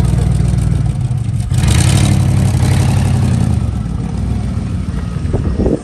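Modified off-road truck's engine running loud as the truck pulls away. It revs up with a rush of noise about one and a half seconds in, then eases off and drops away near the end.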